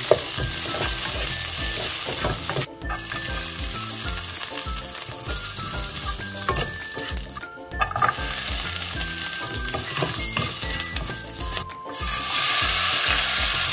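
Minari stalks and cucumber strips sizzling in hot oil in a nonstick frying pan as they are stirred with a spatula. The sizzle cuts out briefly three times, and in the last couple of seconds it gets louder as oil heats in the nearly empty pan.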